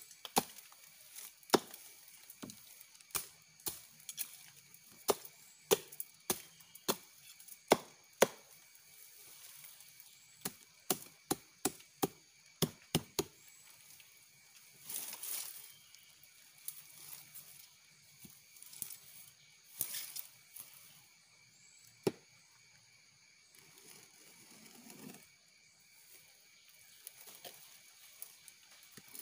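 Machete strokes hacking and clearing the black ijuk fibre off a sugar palm (aren) trunk: a run of sharp, irregular chops, close together for the first dozen seconds and then sparser. A couple of longer, softer swishes come in between.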